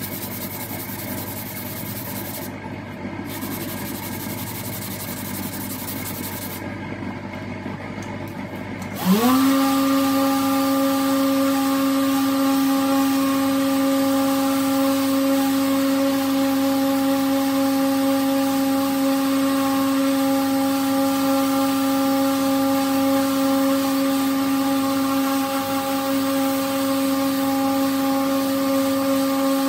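Steady scratchy hiss of sanding, then about nine seconds in an electric power tool's motor spins up with a quick rising whine and settles into a steady hum.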